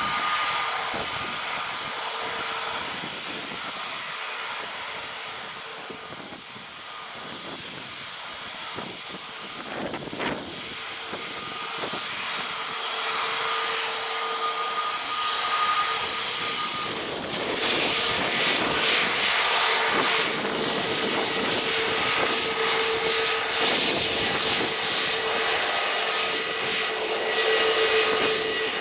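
Airbus A321neo's jet engines running: a steady whine over a rushing noise, which grows much louder and harsher about seventeen seconds in.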